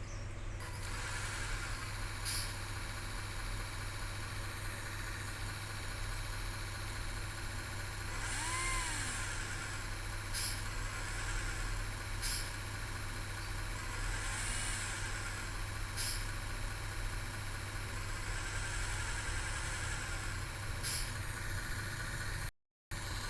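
RC car engine sound module playing a simulated engine idling steadily, swelling up and back down in pitch a few times as the throttle is blipped.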